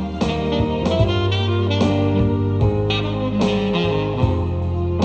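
Saxophone solo over a soft-rock backing of bass and drums, playing long, wavering held notes in an instrumental break between sung verses.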